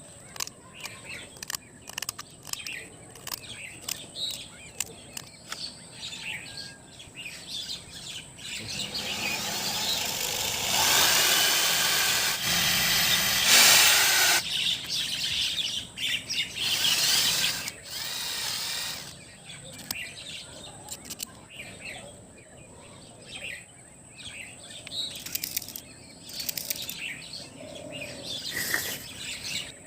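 Wood being worked by hand with many short scraping and tapping sounds, with a louder stretch of steady noise from about nine to nineteen seconds in. Birds chirp in the background.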